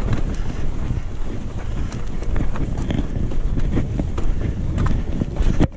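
Wind rumbling on the microphone of a mountain bike's ride camera, with the tyres rolling over rock and gravel and the bike clicking and rattling over bumps. The sound cuts off suddenly near the end and comes back quieter.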